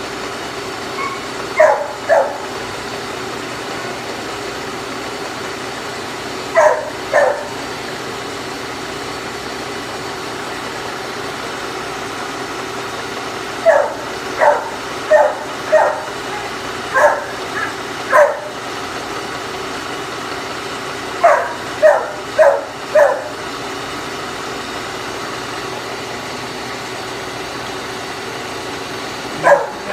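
A dog barking in short runs of two to four quick barks every few seconds, over the steady running of a Brown & Sharpe 3A universal milling machine whose cutter is milling a groove through the nitrile rubber coating of a steel roller.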